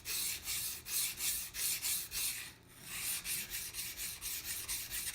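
High-carbon steel butcher's knife stroked back and forth on a coarse 200-grit water stone, a gritty scraping of about three strokes a second with a short pause a little past halfway. The sound is the stone cutting the steel quickly.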